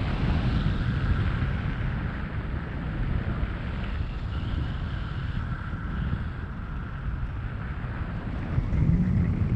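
Steady wind rushing over the microphone in flight on a tandem paraglider, a dense low rumble of airflow.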